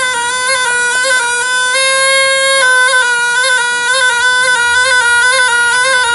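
Snake charmer's pungi, a reed pipe, playing a reedy, wavering tune that stays close to one steady pitch, with a longer held note about two seconds in.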